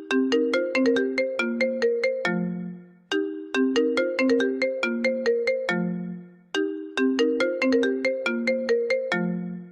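iPhone 11 Pro ringtone playing: a short melody of quick notes that ends on a lower note which fades away, repeating about every three seconds, nearly three times.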